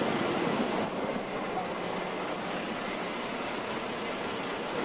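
Steady rush and rumble of road and wind noise inside a passenger wagon being driven along a road, with faint muffled voices in the first second.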